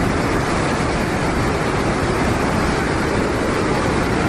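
Whitewater of the Jinsha River rushing through Tiger Leaping Gorge: a steady, loud, unbroken noise of churning rapids.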